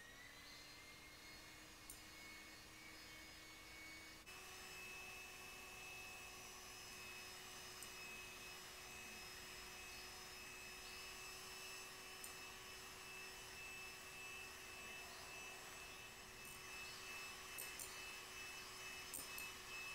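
Electric hand mixer whisking egg whites into meringue: a steady, quiet motor whine that steps up in pitch about four seconds in as the motor runs faster, then holds. A few faint ticks come near the end.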